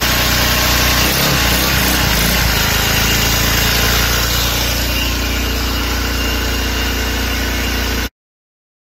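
Small 50cc four-stroke engine running steadily on hydrogen gas, then stopping abruptly near the end.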